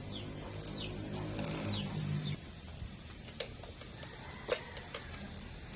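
A low steady hum for about two seconds, then a few sharp metallic clicks from tools and parts being handled on a small mower engine, the loudest near the middle.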